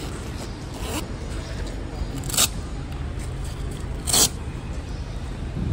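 A few short, sharp scrapes from surfboards and their board bag being handled, the loudest two about a second and a half apart, over a steady low rumble.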